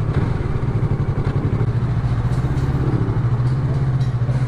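Yamaha R3's parallel-twin engine running at low, steady revs near idle, an even low pulsing note.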